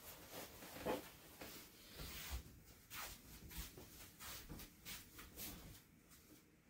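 Faint soft footsteps of tabi-socked feet padding across tatami mats, with the rustle of a kimono, about two steps a second, growing fainter near the end as the walker moves away.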